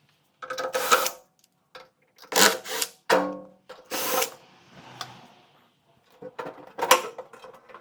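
Power screwdriver running in about six short bursts, backing the screws out of a microwave oven's sheet-metal outer cover.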